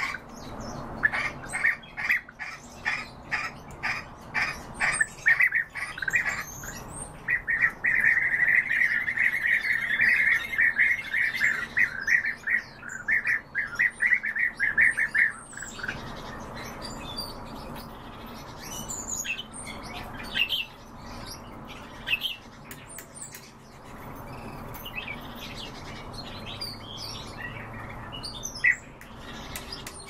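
European bee-eaters calling: short rolling calls about two a second, then a long run of fast, overlapping chattering calls that stops about halfway through. After that only scattered higher chirps remain.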